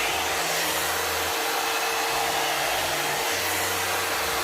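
One-step hot-air brush (hair dryer and volumizer) running on its low setting: a steady blowing hiss of air with an even motor hum.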